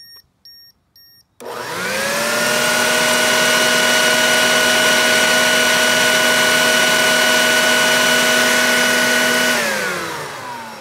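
Canister vacuum cleaner switched on about a second and a half in. Its motor whine rises quickly to full speed and runs steadily. Near the end it is switched off and winds down, the whine falling in pitch.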